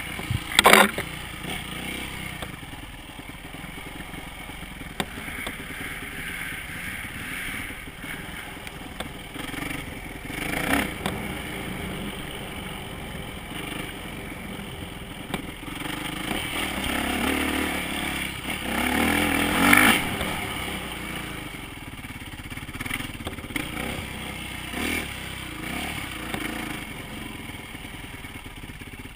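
Dirt bike engine running under throttle while the bike is ridden over rough ground, getting louder for a few seconds past the middle, with a few sharp knocks and clatter from the bike.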